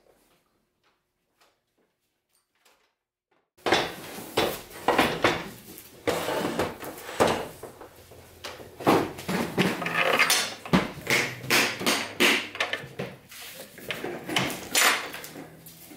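Irregular clatter and knocks of metal and hard plastic as a Bosch REAXX jobsite table saw is handled on its stand. The clatter starts suddenly about three and a half seconds in, after near silence.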